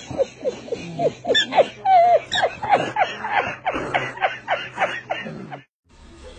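A man laughing hard, a quick run of short falling "ha"s, several a second, that cuts off suddenly near the end.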